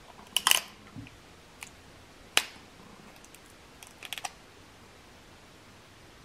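Crab leg shells cracked and snapped apart by hand: a burst of sharp cracks about half a second in, a single sharp crack a little before halfway, and a quick run of small clicks around four seconds.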